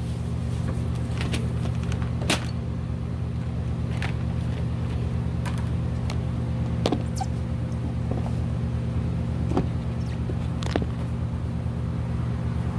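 Scattered clicks and light knocks of hands moving rubber fuel hoses and metal fittings around a carburettor in a car's engine bay, about half a dozen, the sharpest about two seconds in. Under them a steady low hum.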